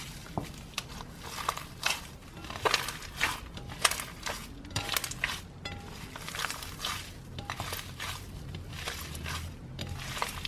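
Slime being squeezed and stretched by hand, giving irregular sticky pops and clicks, with the loudest pops in the first half.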